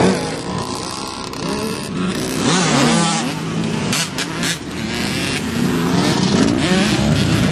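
Off-road vehicle engines running and revving, with the engine pitch rising and falling about halfway through.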